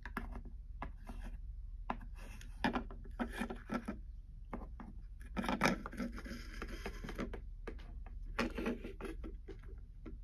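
Small plastic toy figures and accessories being picked up, moved and set down on a wooden tabletop: scattered light clicks, taps and rubbing scrapes, coming in three clusters.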